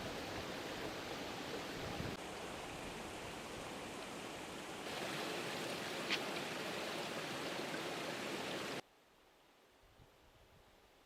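Steady rushing water that jumps in level abruptly twice, with one short click a little past the middle. It cuts off suddenly near the end, leaving only faint outdoor quiet.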